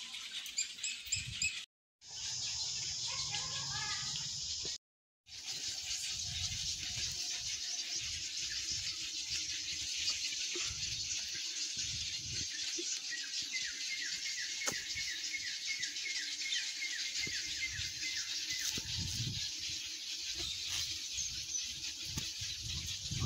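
Many birds chirping and calling together in a dense, continuous chatter. The sound cuts out twice briefly near the start, and a run of quick repeated chirps stands out about two thirds of the way through.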